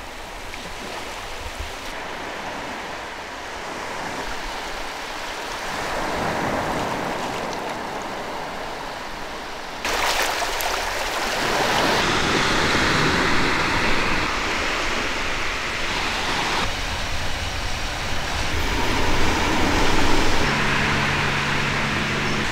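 Small waves washing onto a beach, a steady rushing noise that shifts in level a few times. A low steady hum comes in near the end.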